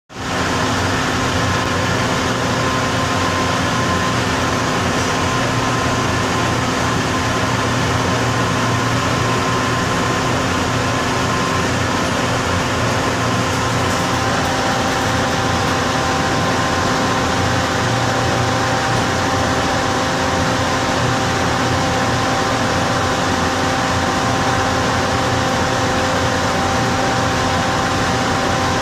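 Loud ventilation fan inside an inclined elevator car, a steady rush of air with a steady hum in it; a higher steady tone joins about halfway through.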